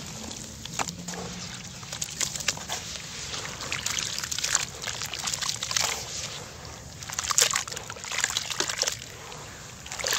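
Hands sloshing and swirling wet sand and cement in water in a plastic basin: a run of splashing swishes, loudest in the second half.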